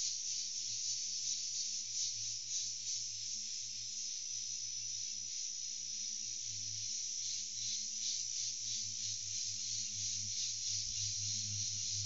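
Insect chorus in scrub forest: a dense, steady, high-pitched buzzing with a pulsing texture, over a faint low steady hum.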